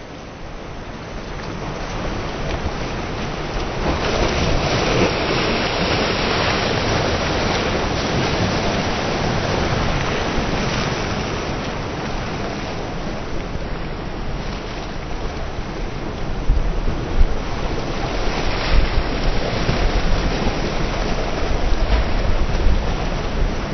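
Sea surf breaking and washing, with wind buffeting the microphone; the low wind rumble comes in stronger gusts in the second half.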